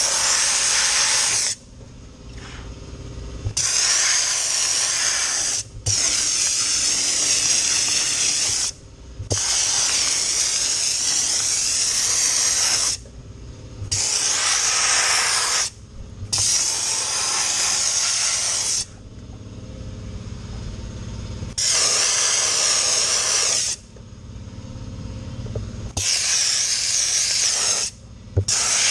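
Dry ice blasting nozzle hissing loudly in about nine on-and-off bursts of one to four seconds, starting and stopping sharply, as it blasts the car's front suspension and underside. A fainter steady noise carries on between the bursts.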